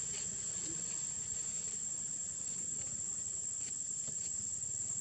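Insects calling in one steady, unbroken high-pitched tone.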